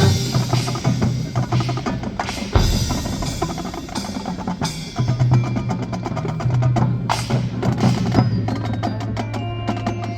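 Marching band playing a percussion-heavy passage: drums and mallet percussion striking busily over sustained low notes, with several loud accented hits.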